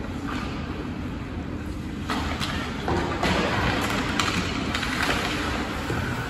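Ice hockey skates scraping and carving on the ice, with several sharp clacks of sticks and puck through the middle.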